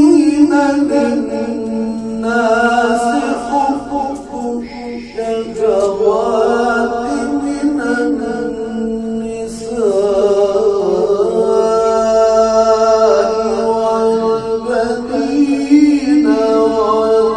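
A man's voice reciting the Quran in melodic tajweed style. It moves through several long phrases of held notes and ornamented runs, with short breaths between them.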